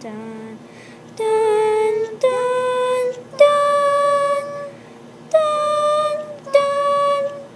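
Soundtrack music: a high female voice singing a slow, lullaby-like melody of long held notes, about six in all, each roughly a second long with short gaps between them.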